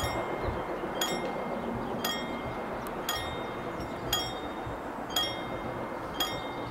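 Level crossing warning bell striking about once a second with a short ringing tone, over steady background noise: the crossing is closed for an approaching train.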